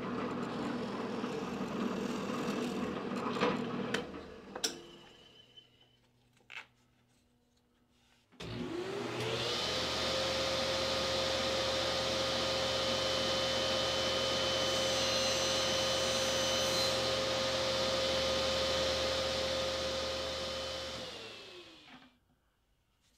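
An electric drill boring a half-inch counterbore into plywood runs steadily for about four seconds, then stops. After a pause, a table saw starts up about eight seconds in with a rising whine, runs steadily for over ten seconds, and winds down near the end.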